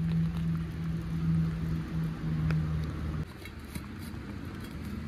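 A steady low hum, like a motor running, that cuts off abruptly about three seconds in, over a low rumble with a few faint clicks.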